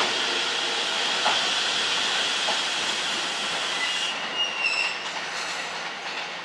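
Electric train running, its wheels clacking a few times over rail joints, with a brief high wheel squeal in the second half as the sound slowly fades away.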